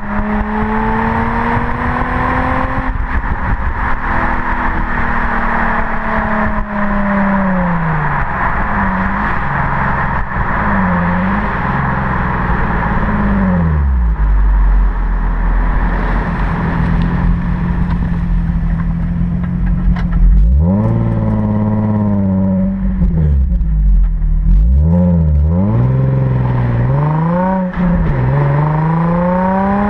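Nissan 350Z's stock V6 exhaust heard at the tailpipe while driving: the engine note climbs and falls over and over as the revs change, with several quick rises and drops close together in the last third. A steady rush of wind and road noise lies under it.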